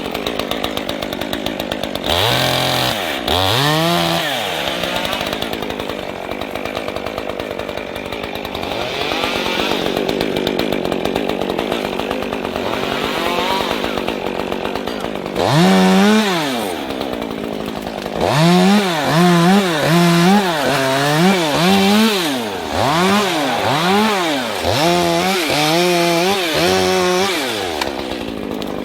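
Two-stroke chainsaw running, at times settling near idle and at times revving up and back down. Past the middle it revs in a quick run, about once a second.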